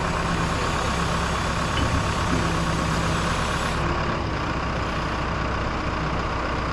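Boat-yard travel lift's engine idling steadily with a constant low hum.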